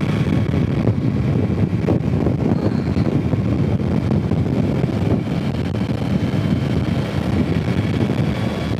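Steady wind rush over the microphone of a Yamaha Tracer 9 GT motorcycle on the move, with the bike's running sound beneath it.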